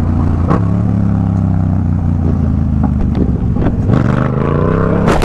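Motorcycle engine running steadily at low speed in traffic, with a few short clicks near the end.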